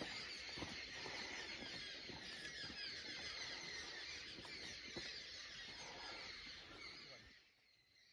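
Forest ambience: a dense chorus of high chirping, with a few faint low knocks, fading out about seven seconds in.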